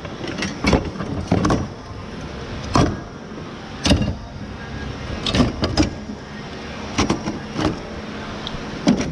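Irregular knocks and clanks of scrap metal being handled and moved, about ten sharp hits spread unevenly over nine seconds.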